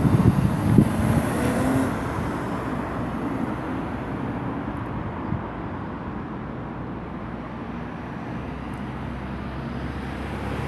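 Road traffic: a car passes close by, loudest in the first two seconds, then a steady hum of traffic from the roundabout, with a low engine drone building near the end.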